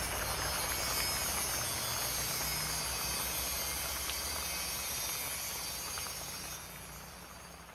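A steady hiss with a low rumble underneath, fading out over the last second or two.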